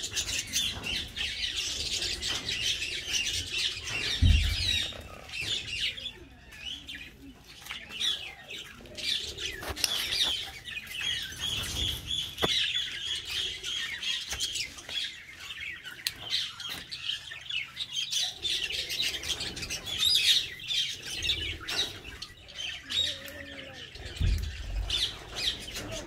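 A flock of budgerigars chattering and warbling without a break, a dense mass of small high chirps with the odd louder squawk. Two dull low thumps stand out, about four seconds in and near the end.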